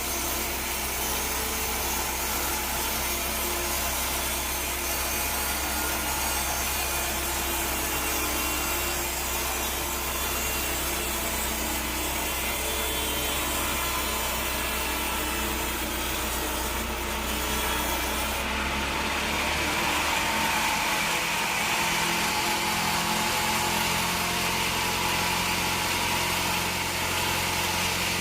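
Band sawmill blade cutting through a teak log: a steady rasping saw noise over the mill's motor hum. About two-thirds of the way through, the sound changes: the high hiss drops away and a higher whine comes in with a different engine note.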